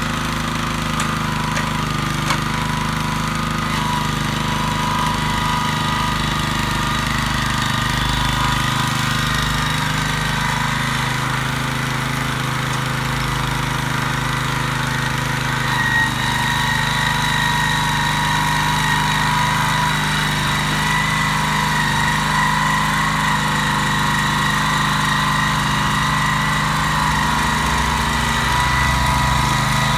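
Kubota TR90 walk-behind tiller's 6.8-horsepower engine running steadily as the tiller rolls along on its wheels. A steady high whine comes up over the engine about halfway through.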